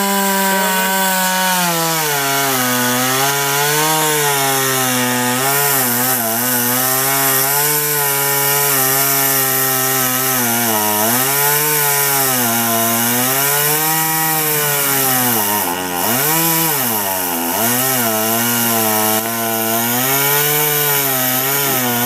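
STIHL two-stroke chainsaw running under load while cutting wood. Its engine pitch wavers up and down and drops sharply twice about three-quarters of the way through as it bogs in the cut.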